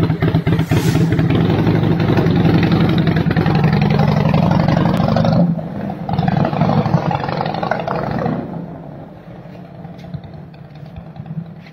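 Harley-Davidson Heritage Softail's Twin Cam V-twin running loud through long handmade fishtail exhaust pipes, a steady pulsing exhaust note. After about five and a half seconds the bike pulls away and its exhaust note fades steadily over the last few seconds as it rides off.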